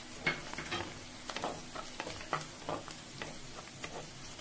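Chopped onions and green chilli sizzling in hot oil in a clay pot, stirred with a spatula that scrapes and taps against the pot in quick, irregular strokes.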